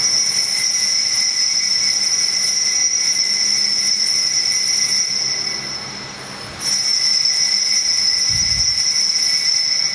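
Consecration bell ringing at the elevation of the host, a high steady ring. It stops briefly about six and a half seconds in, then rings again.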